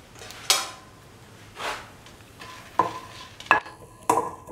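Dry shrimp and red chillies being stirred and sautéed in a hot pan: a dry swish of the spatula about once a second, with a few sharp clinks of utensil against pan in the second half that ring briefly.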